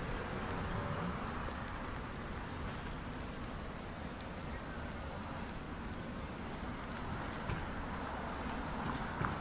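Street traffic noise: a steady rumble of cars passing on a city road, with a brief sharp click near the end.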